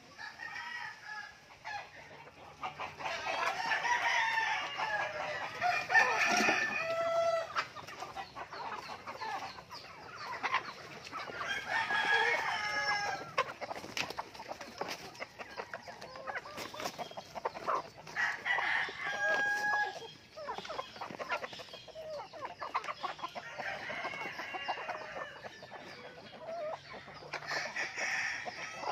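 A flock of hens and roosters clucking and calling around a feeding trough, with louder calls standing out every several seconds.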